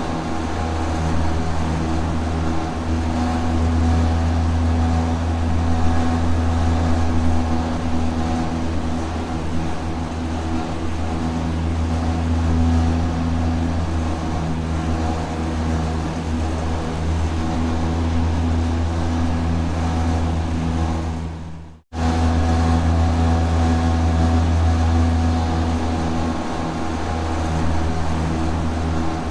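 Industrial rotating machinery running steadily: a strong low hum with several constant tones above it. Three-quarters of the way through it fades out briefly and comes straight back.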